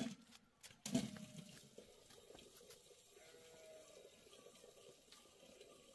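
A sheep or goat bleating once, loud and short, about a second in, just after a sharp sound at the very start. After that only faint background sound.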